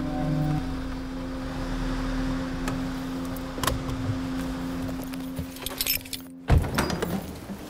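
Inside a car: keys jangling and a few clicks over a steady low hum. The hum cuts off abruptly, and a loud thump follows with more rattling near the end.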